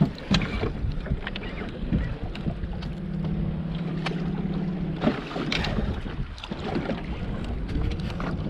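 Wind buffeting the microphone with scattered knocks and rustles from handling, and a steady low hum for a couple of seconds in the middle.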